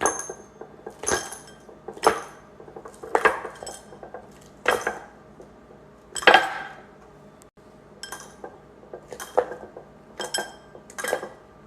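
Hard objects clinking together in sharp, separate strikes, about ten of them roughly a second apart, each with a brief bright ring.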